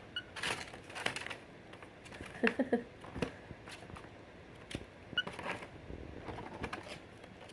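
Cockatiels moving about inside a brown paper bag: faint, scattered scratching of claws and crinkles of paper, with a few brief squeaks.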